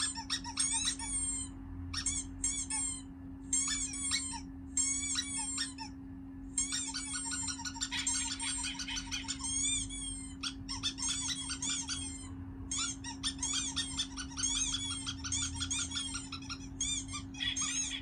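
Recorded bird chirping played through a smartphone speaker: quick runs of short, high chirps that come in bursts with brief gaps, over a steady low hum.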